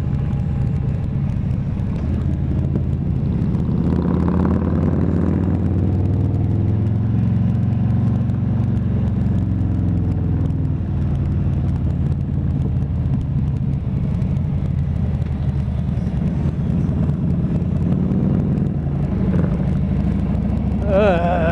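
Harley-Davidson touring motorcycle's V-twin engine running under way. Its note rises and falls a few times between about 4 and 10 seconds in as the bike changes speed, then runs steadily.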